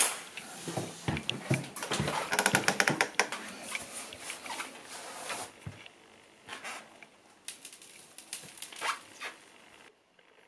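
Trail-running shoes being handled and laced: a string of short clicks, scrapes and rustles, with a quick run of clicks about two to three seconds in, thinning to scattered ticks and going quiet near the end.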